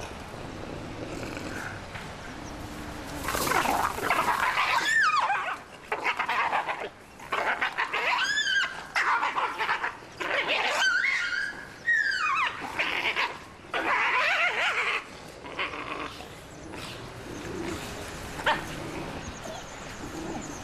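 Wolves squabbling over a deer carcass. There are bursts of snarling and high yelps that slide up and down in pitch, loudest from about three seconds in until about fifteen seconds in. This is the sound of wolves aggressively defending their food.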